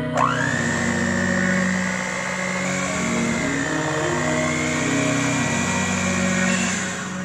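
Electric hand mixer switched on, its motor whining quickly up in pitch and then running steadily, wavering a little, as its beaters whip thick cake batter; it switches off at the very end.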